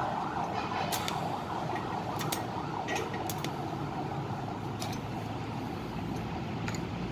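Electric arc welding on thin stainless-steel sheet: a steady crackling hiss from the arc, broken by several sharp ticks. The welds are laid in short spots because the metal is thin.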